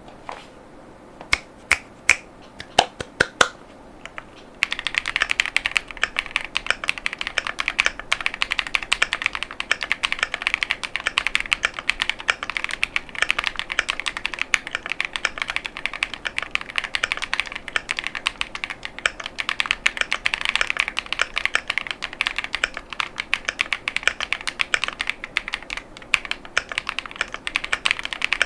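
Mechanical keyboard with KiiBoom Crystal Linear 55gf switches and PC ASA-profile keycaps: a few single, spaced-out clicks, then continuous fast typing from about four and a half seconds in.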